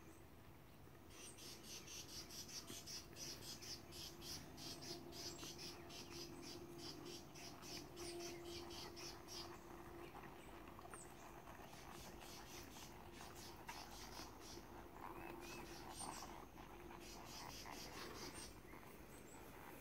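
Faint insects calling in a rapid, even pulsing trill that comes and goes, with a few short bird chirps and a faint steady low hum.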